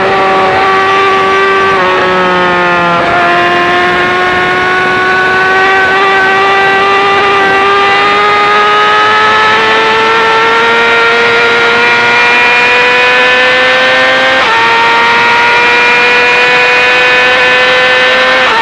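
2018 Yamaha R6's inline-four engine through an Akrapovic full-system exhaust, revving high under load. The pitch dips briefly about two seconds in, then climbs slowly and steadily for about ten seconds. An upshift drops it suddenly, it climbs again, and a second upshift drops it near the end.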